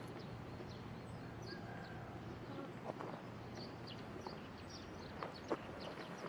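Faint outdoor background with a low steady hum, scattered short high bird chirps and a few soft clicks, the sharpest about five and a half seconds in.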